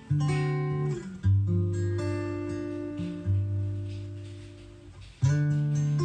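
Acoustic guitar playing an instrumental passage of a pop ballad: chords struck one after another, each ringing out and fading before the next. It is played back through a Harman Kardon Onyx Studio 5 portable speaker.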